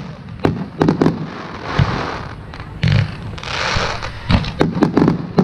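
Aerial fireworks shells bursting: a string of sharp bangs at uneven intervals, with several in quick succession near the end.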